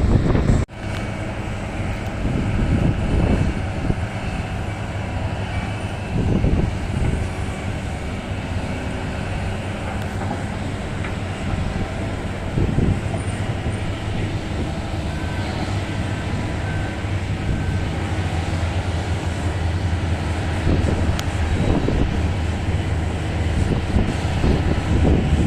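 Heavy mining machinery's large diesel engines running steadily, from a Komatsu PC1250 excavator working alongside a Komatsu HD785 dump truck. The engine note swells several times as the machines work under load, and the sound drops out briefly about half a second in.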